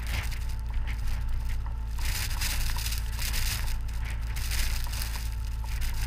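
Tracked Small Unit Support Vehicle running, a steady low engine rumble under crackling, crunching noise that grows denser about two seconds in.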